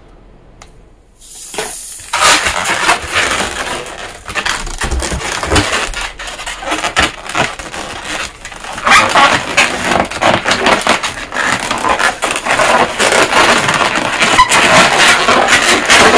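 Inflated latex modelling balloons squeaking and rubbing under the hands as they are squeezed, twisted and pushed into shape. It starts about two seconds in and is louder in the second half.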